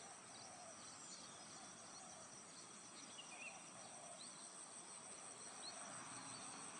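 Faint outdoor nature ambience: a steady high-pitched insect trill like crickets, with a few short, faint chirps scattered through it.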